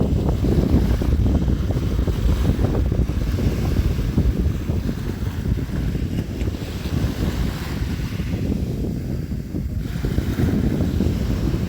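Sea waves splashing and washing, with wind; a steady, churning low rumble that eases briefly near the end and then builds again.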